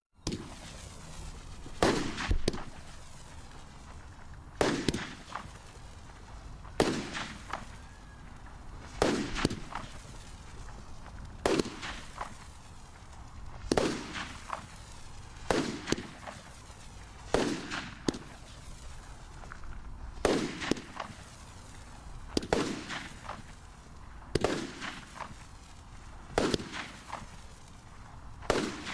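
A 16-shot Golden Palm Tree firework cake firing its shots one at a time, a sharp bang about every two seconds, with a fainter steady hiss between shots.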